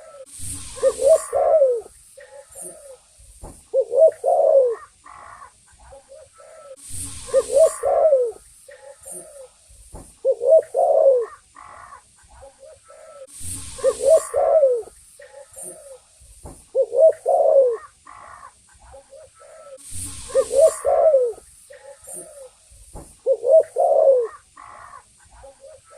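Spotted dove (tekukur) cooing: a short phrase of low coo notes repeated about every three seconds. A brief hissing rush comes every six or seven seconds.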